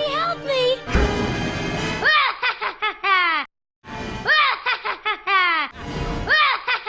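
Sound effect of rapid, high-pitched chattering calls, each rising then falling, in short runs that repeat as a loop, with a sudden cut to silence for a moment about halfway through.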